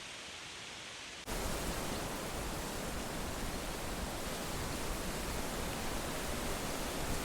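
Wind through autumn leaves, a steady rustling hiss with no distinct events. About a second in it switches abruptly to a louder, brighter stretch, which then holds steady.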